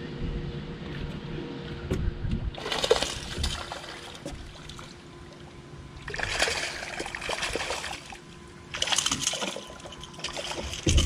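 A hooked snook thrashing and splashing at the water's surface beside the boat as it is reeled in, in several separate bursts of splashing.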